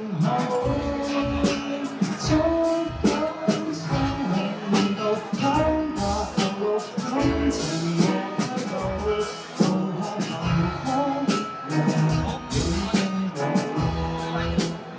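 A band playing a pop-rock song: a singer's voice over guitar, with a steady drum beat.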